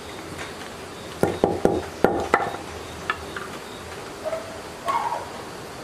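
A quick cluster of about five sharp metal clicks and knocks from small metal parts being handled and fitted together by hand during reassembly, over a steady background hiss.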